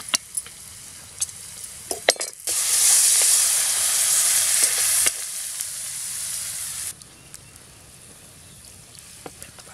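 Spices and salt frying in hot oil in a steel kadai, with a few sharp clicks of a spoon against the pan. About two seconds in, water poured into the hot pan sets off a loud sizzle that eases to a softer hiss and dies away about seven seconds in.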